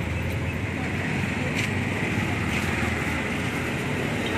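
Steady low rumble and hiss of outdoor street background noise, with a couple of faint clicks.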